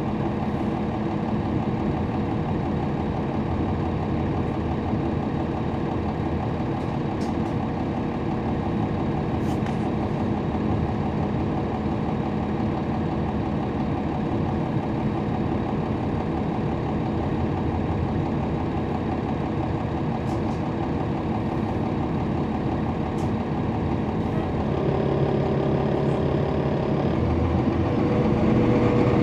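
Cummins ISL9 diesel engine of a NABI 40-SFW transit bus running steadily, heard from inside the bus, with a few faint ticks and rattles. A few seconds before the end a steady hum joins in for a couple of seconds, and the sound grows a little louder toward the end.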